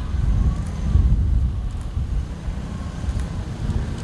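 Gusty wind buffeting the camera microphone, a rumbling low roar that rises and falls.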